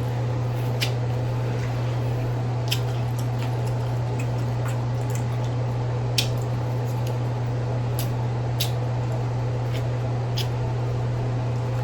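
Scattered wet smacks and clicks of someone eating from a seafood boil, about six spread across the stretch, over a steady low hum.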